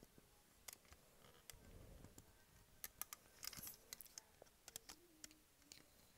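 Faint, scattered clicks and ticks of rubber loom bands being handled and stretched on a plastic loom's pegs, with a small cluster of sharper clicks about three and a half seconds in.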